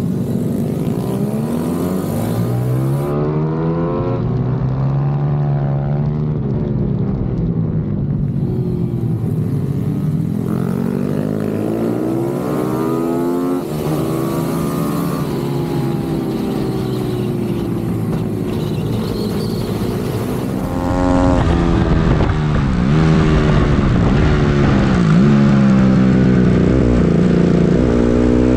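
Pit bike's single-cylinder four-stroke engine, a Honda CRF150R, revving up and dropping over and over as the rider accelerates out of corners and shuts off into them, with other pit bike engines mixed in. About two-thirds of the way in it gets louder, with more rumble and rushing noise.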